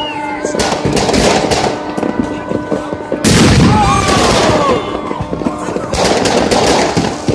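Many fireworks going off at once: dense crackling bangs in rolling bursts, loudest a little past three seconds in.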